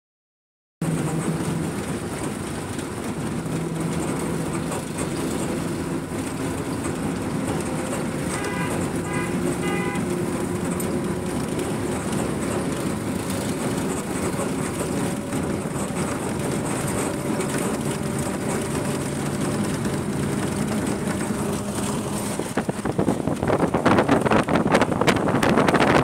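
Steady engine and road noise of a moving vehicle, heard from inside it. A horn honks three short times about eight seconds in. Near the end, wind buffets the microphone through the open window.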